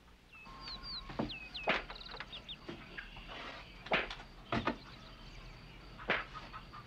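Four sharp cracks of a leather belt striking, spaced irregularly a second or two apart, a spanking. Birds chirp in the first few seconds.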